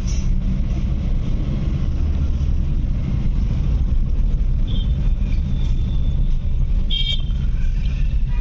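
Car cabin noise while driving slowly in town traffic: a steady low engine and tyre rumble. A vehicle horn beeps briefly about seven seconds in.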